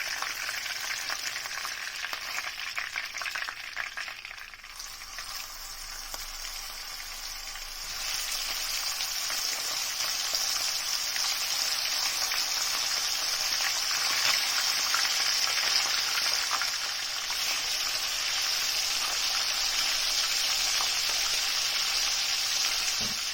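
Pieces of marinated chicken frying in hot oil in a frying pan: a steady sizzle with fine crackling pops. It grows louder about eight seconds in.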